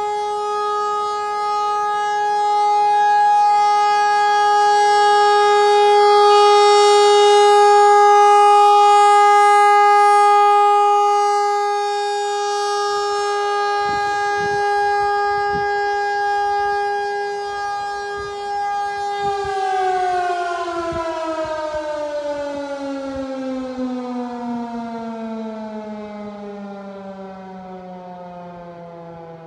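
American Signal RM-130 rotating mechanical warning siren sounding one steady tone, swelling louder and falling back as its head turns. About 19 seconds in it winds down, the pitch gliding steadily lower while the sound fades: the end of its three-minute steady test.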